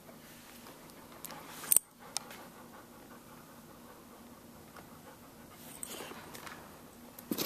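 Young Samoyed puppy shuffling and pawing at the plastic rim of its whelping box: faint rustling and small claw clicks, with one sharp, louder click about a second and a half in.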